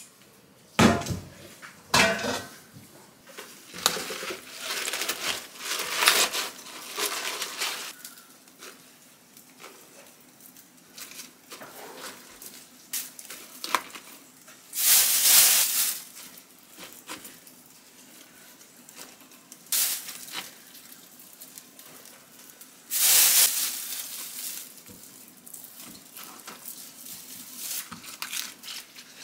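Kitchen handling sounds as raw pork belly slices and cabbage leaves are laid into an enamel stockpot: scattered knocks and clinks against the pot, with two louder rustling bursts, about fifteen and twenty-three seconds in.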